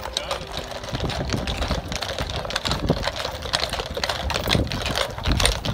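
Hooves of a group of horses clip-clopping on an asphalt road: many overlapping, irregular clatters.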